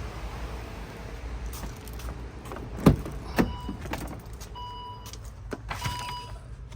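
Two sharp knocks from the car's door or interior, then the car's electronic warning chime starting about halfway through and repeating roughly every second and a bit.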